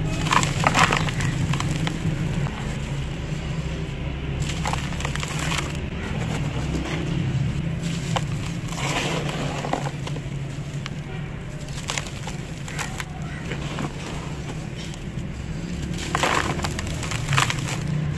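Dry sand-cement lumps crushed and crumbled by hand in a plastic tub: gritty crunching and crackling in bouts every few seconds as the chunks break apart and crumbs fall. A steady low rumble runs underneath.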